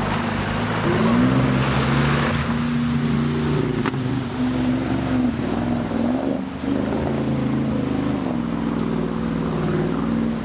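Off-road vehicle engine running under load, its pitch rising and falling several times as the revs change, with wind noise on the microphone.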